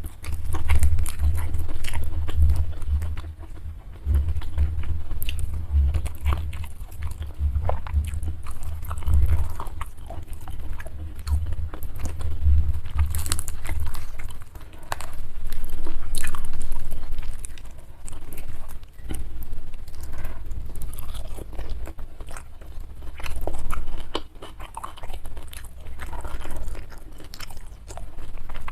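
Close-miked chewing and biting of food, with wet smacks and crunchy clicks. The meal is fried carp with sambal, young jengkol, bean sprouts and rice. Deep low thuds pulse under the chewing for about the first half.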